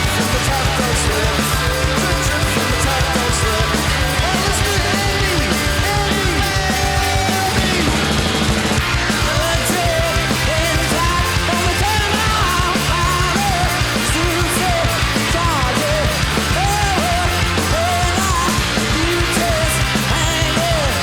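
Live heavy psychedelic rock band playing loud: distorted guitars, bass and drums in a steady, driving jam, with lead notes bending up and down over the low riff.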